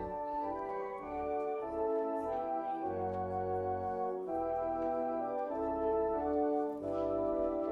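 Church organ playing the closing hymn: sustained chords over a deep bass line, moving chord to chord at a steady hymn pace.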